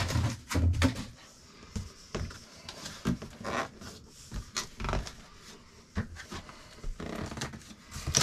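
A large box and its packaging being handled and opened: a series of knocks, scrapes and rustles, loudest in the first second, then scattered softer ones.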